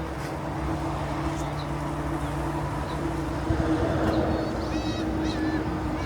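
Boat engine running with a steady hum over a wash of wind and water noise, with a few short high chirps and a brief wavy high call near the end.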